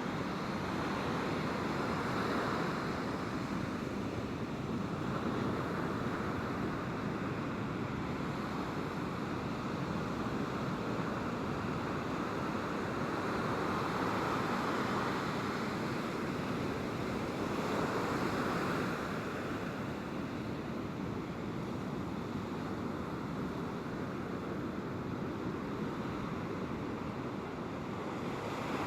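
Ocean surf breaking on a sandy beach: a steady rush of wave noise that swells as each wave comes in.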